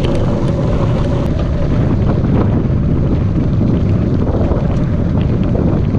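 Wind buffeting the microphone of a camera mounted on a moving bicycle, heard as a loud, steady rush, with the tyres rolling over a gravel trail and a few small ticks.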